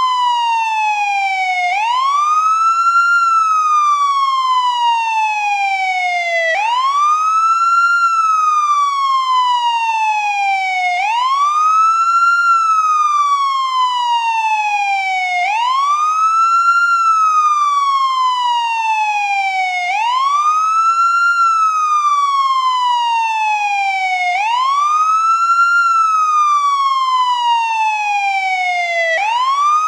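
Ambulance wail siren, sounding continuously: each cycle is a quick rise in pitch followed by a slow, even fall, repeating about every four and a half seconds.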